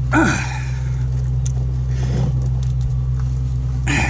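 Engine idling with a steady low hum, with two short louder sounds, one at the start and one near the end.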